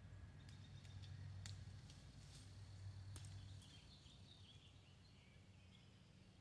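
Faint outdoor ambience: a steady low hum, a few sharp clicks in the first three seconds, and a bird chirping softly from about halfway through.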